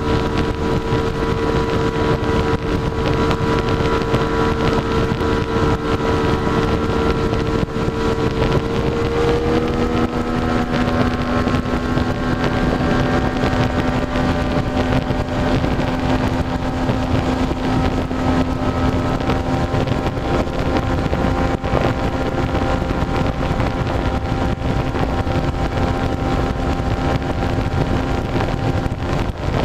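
Outboard motor of a 19-foot Carolina Skiff running at speed, with a steady rush of wind and water underneath. About nine seconds in, the engine note shifts, rising a little and settling into a new steady pitch.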